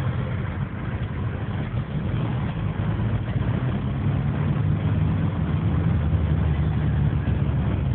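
Car engine and tyre rumble heard from inside the cabin while driving, a steady low drone that grows somewhat louder about three seconds in.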